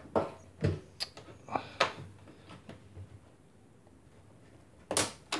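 Rubber door gasket (door boot) of a front-loading washing machine being pulled and worked loose from the opening by hand: a run of short scrapes and clicks in the first two seconds, then a quiet stretch, then two sharp noises near the end.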